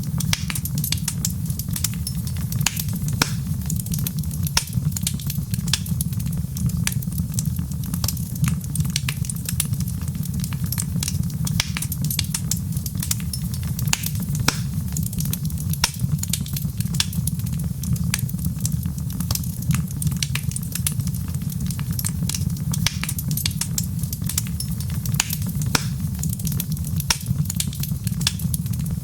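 Wood fire crackling: frequent, irregular small pops and snaps over a steady low rumble.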